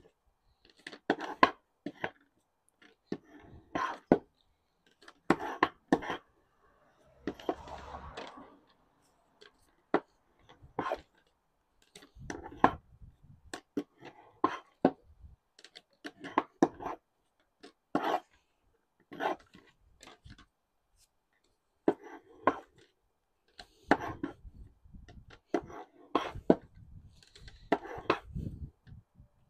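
Shave hook scraping thin lead welding sticks against a board, in short repeated strokes about one or two a second with brief pauses: the oxidised surface is being shaved off to leave clean lead for welding.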